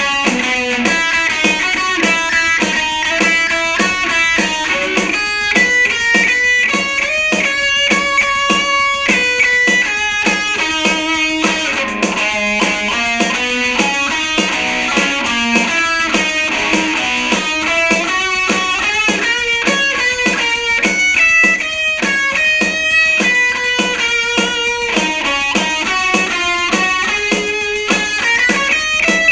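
Instrumental break in a rock song, led by electric guitar playing a run of quick, changing notes.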